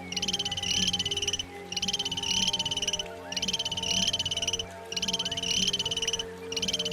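An animal calling in a rapid buzzy trill, each call about a second and a quarter long, repeated about every second and a half.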